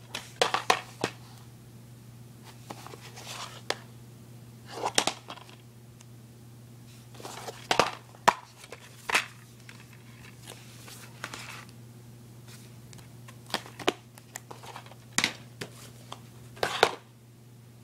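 Plastic DVD cases being handled on a wooden floor: irregular clacks and short rustles as cases are picked up, flipped over and set down.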